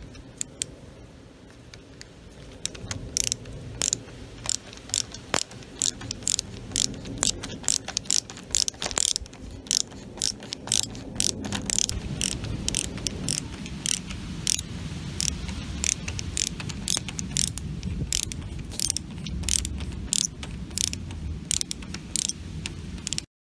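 A ratcheting screwdriver clicking in a steady run, about two clicks a second, as it turns the roller height-adjustment screw of a sliding glass door. The clicks cut off abruptly near the end.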